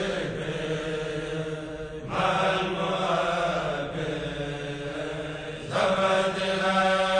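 Chanted Arabic religious poem, a Mouride khassida, sung in long held lines over a steady low hum, with new phrases starting about two seconds in and again near the end.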